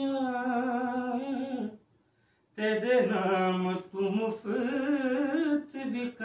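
A solo male voice singing a Sufi kalam without instruments, holding long, wavering melismatic notes. The singing stops for under a second about two seconds in, then goes on.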